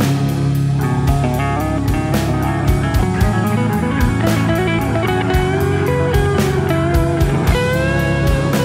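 Rock band recording: guitar playing over bass and a steady drum beat.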